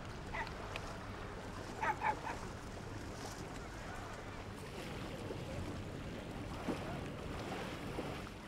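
Riverside beach ambience: a steady wash of water and wind with a low hum underneath, and two short distant calls, like voices of bathers, about two seconds in.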